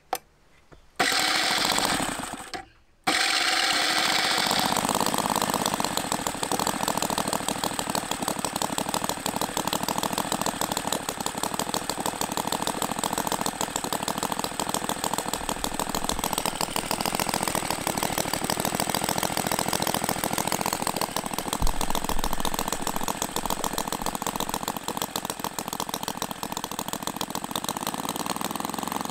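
Jerry Howell V-twin model petrol engine turned over by its electric starter in two short bursts, then catching at about three seconds and running steadily with a fast, even firing beat.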